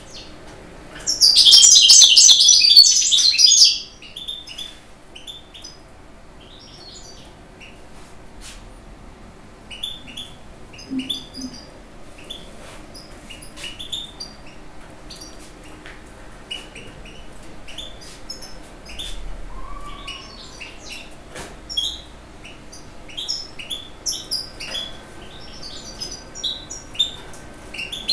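European goldfinch twittering: a loud, dense run of song starting about a second in and lasting nearly three seconds, followed by scattered short high chirps.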